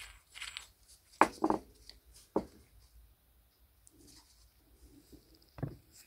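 Handling knocks of small door-closer parts, a metal cup and a washer, under gloved hands: a few short, sharp knocks, two close together a little over a second in and another about a second later, then one more near the end.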